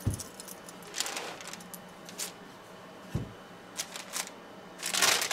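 Fabric and paper rustling, with light scrapes and taps from hands working the quilt pieces on a pressing table, a dull knock about three seconds in and a louder rustle near the end.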